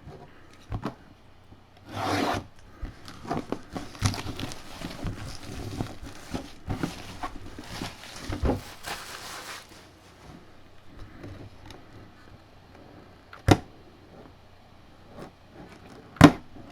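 Packaging rustling, rubbing and tearing as a box is opened and a mini football helmet is unpacked by hand. Two short sharp knocks come near the end.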